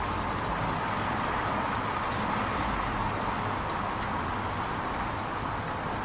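Steady rain falling on a city street, an even hiss with a few faint drip ticks, over a low rumble of traffic.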